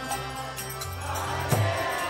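Kirtan music: voices chanting together over a low sustained drone, with jingling percussion and a single strong drum stroke a little past halfway.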